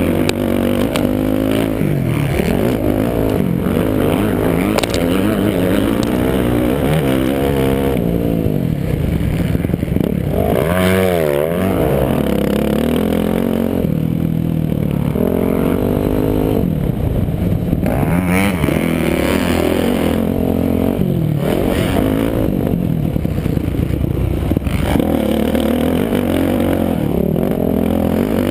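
Motocross bike engine revving up and down as it accelerates and shifts, its pitch rising and falling repeatedly, with wind rushing over the helmet-mounted microphone.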